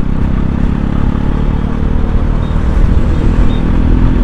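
Bajaj Pulsar NS200 single-cylinder engine running steadily while the motorcycle is ridden, with a constant rush of road and wind noise.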